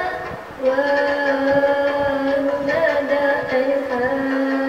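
Slow melodic music: a long held low note with a gently wavering melody above it, starting about half a second in after a brief pause.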